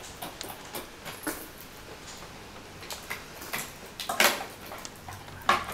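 Small, irregular clicks and taps of fingers handling the wires and components of a bomb-like device, with louder clicks a little past four seconds in and again near the end.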